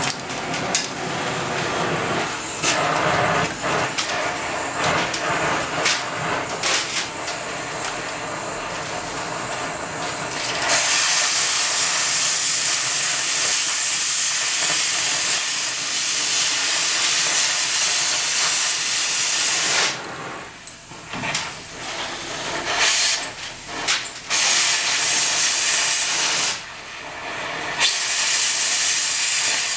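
Metal knocks and clanks for about the first ten seconds of metalwork on a truck frame, then a loud, steady hiss from a gas or air shop tool. The hiss stops and restarts in short spurts several times near the end.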